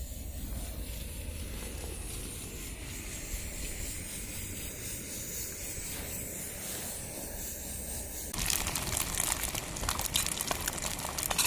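Pressurised petrol camping stove burning with a steady hiss and low rumble. About eight seconds in, food goes into the hot pan and starts sizzling loudly with dense crackling.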